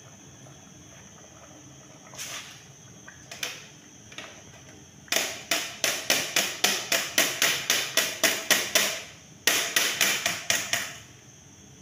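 A plastic colander tapped over a metal cooking pot to knock rice into it. There are a few single knocks, then about four seconds in a fast run of sharp knocks, about five a second, a short pause, and a shorter second run.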